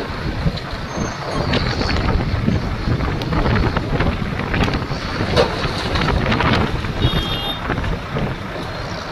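Volvo crawler excavator's diesel engine running under load with a steady rumble, as its bucket digs into broken rock at the start and swings round. Rock clatters and knocks as it tips the load into the tipper truck's body near the end.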